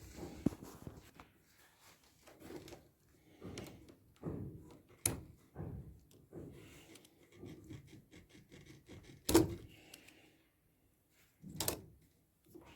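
Intermittent knocks, clunks and handling noises, with three sharper knocks about five, nine and a half, and just under twelve seconds in: washing machine parts and tools being handled during disassembly for a bearing replacement.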